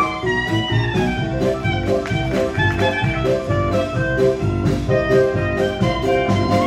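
Live jazz band playing an instrumental passage, with piano, a drum kit keeping a steady beat and a horn carrying the melody.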